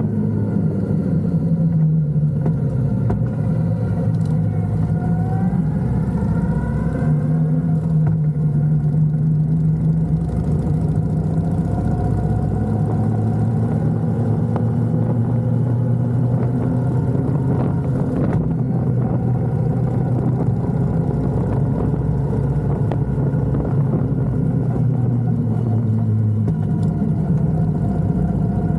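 Motorcycle engine running at cruising speed, its pitch holding steady for long stretches and shifting with the throttle, climbing briefly a few seconds in.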